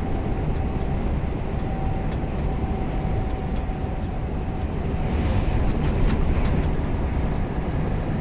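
Semi-truck driving, heard from inside the cab: steady engine and road rumble. A thin steady tone runs through the first half and stops. About five to seven seconds in, a hiss swells and a few light clicks sound.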